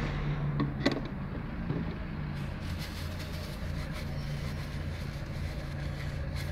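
A steady low mechanical hum, like a vehicle engine idling, with a few light plastic clicks about a second in as the funnel is lifted out of the scooter's oil filler.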